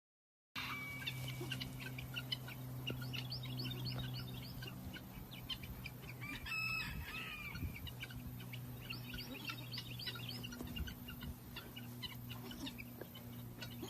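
Chickens calling: a stream of rapid short chirps, with one louder call about six and a half seconds in, over a steady low hum.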